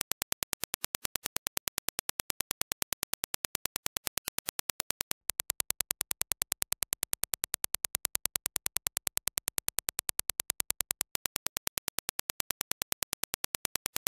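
A fast, even train of identical sharp clicks: a Dirac impulse test signal. About five seconds in it switches to the impulse train as reproduced by Sennheiser HD650 headphones, slightly louder, and about eleven seconds in back to the reference impulse.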